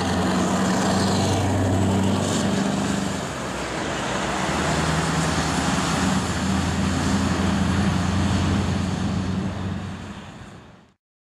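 Scania truck passing with a container trailer, its diesel engine running with a steady low hum over tyre and road noise. The engine note drops briefly about three seconds in and then comes back. The sound fades out near the end.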